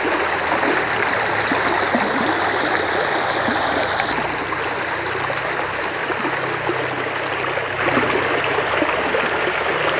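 Small river flowing steadily, an even rush of water over stones.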